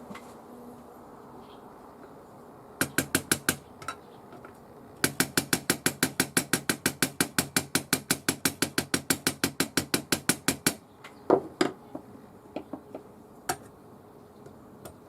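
A run of quick, even metallic clicks, about six a second for roughly six seconds. Four clicks come before it and a few separate knocks after, from hand-tool work on an impact driver.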